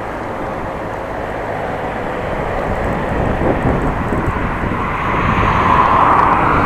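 Wind and road noise on an action camera's microphone while riding a bicycle in traffic, growing louder toward the end.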